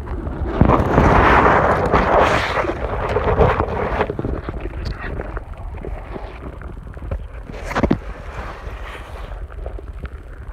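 Muffled rushing and rumbling of pond water against a phone camera held underwater and moved through the weeds, with scattered small clicks. The rush is loudest in the first few seconds, and there is a brief louder burst about eight seconds in.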